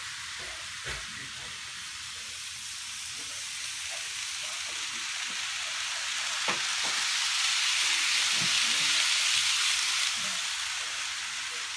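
Model trains running on the layout track: a model EF510 electric locomotive with container wagons, then a model E7 series Shinkansen. Their motors and wheels make a steady high whirring hiss that grows loudest between about seven and ten seconds in as they pass close, then eases. There is a single sharp click about six and a half seconds in.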